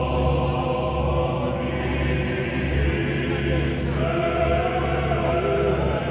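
Choral music: several voices singing long held notes together, over a steady low hum.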